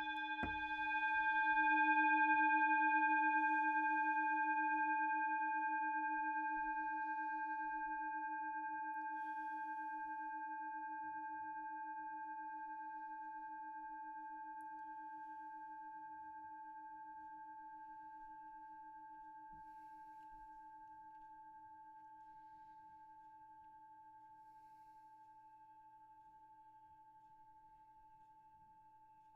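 A hand-held metal singing bowl, struck just before, rings with a low hum and several higher overtones. The ring swells over the first two seconds, then fades slowly and evenly, the low hum wavering, still faintly audible at the end. A faint knock comes about half a second in.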